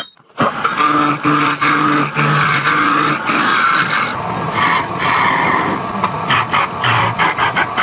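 Wood lathe spinning a square wooden blank while a turning gouge cuts it down into a cylinder: a loud, continuous scraping cut that starts about half a second in, with brief dips in level.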